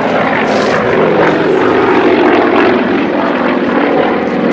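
Two Yakovlev aerobatic propeller planes, a Yak-55 and a Yak-18T, passing overhead in formation, their nine-cylinder Vedeneyev M-14P radial engines running steadily under load.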